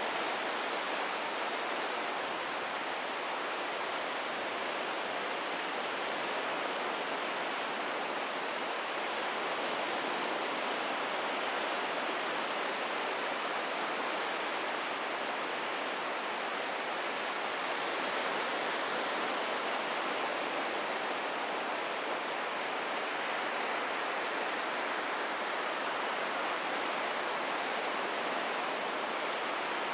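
Ocean surf washing on a beach: a steady, even rush of water with only gentle swells and no distinct breaking crashes.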